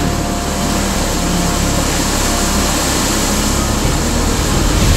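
Hurricane-force wind and driving rain, a steady loud roar.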